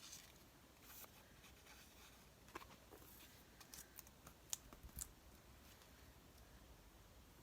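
Faint paper handling on a craft table: soft rustles of paper cutouts being moved and tucked into place, with a few scattered small clicks.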